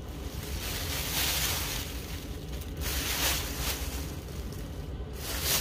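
Plastic shopping bag rustling and crinkling as it is rummaged through, in uneven spells.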